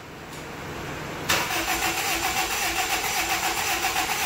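Starter motor cranking the 2005 Honda Civic's four-cylinder engine, starting suddenly about a second in with an even, rapid pulsing chug. The engine is turning over without catching on its first start after a head gasket replacement, the fuel pressure not yet built up.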